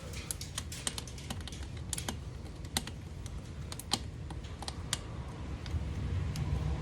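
Worm-drive hose clamp being tightened with a flathead screwdriver: a string of small, sharp, irregular clicks.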